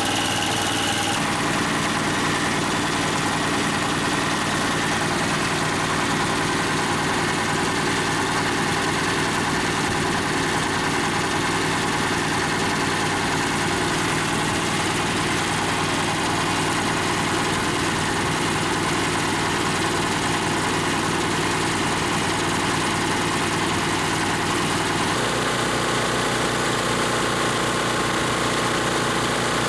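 Small gasoline engine running steadily, belt-driving an air compressor pump that is pumping up the tank. The sound shifts in character about a second in and again near the end.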